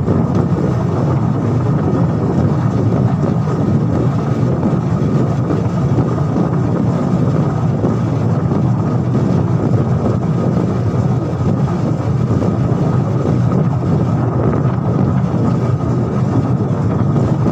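Steady running noise of a vehicle travelling along a road at speed, low and rushing, with a faint steady whine above it.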